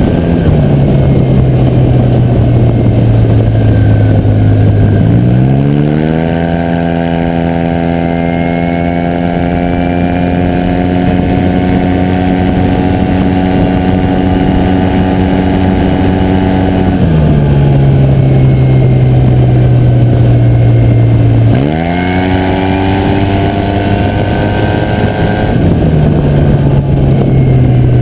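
2019 Yamaha TMax scooter's 530 cc parallel-twin engine running through an Akrapovic exhaust while ridden. The engine note climbs sharply to a higher pitch and holds steady there for about ten seconds as the scooter pulls away, then drops back as it eases off. It climbs again and then falls once more near the end.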